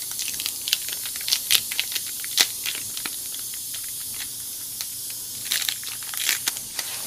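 Steady high hiss of air leaking from a tire's reamed-out puncture, with scattered small sticky crackles and clicks as a tacky rubber tire-plug strip is peeled off and handled.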